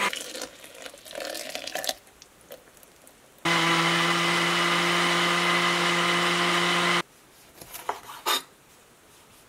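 A countertop blender stops suddenly, then runs again at a steady pitch for about three and a half seconds, blending a cranberry and brown mustard seed mixture, and cuts off. A few sharp knife strokes on a wooden cutting board follow near the end.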